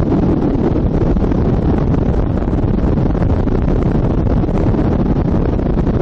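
Loud, steady rumble of wind buffeting the microphone.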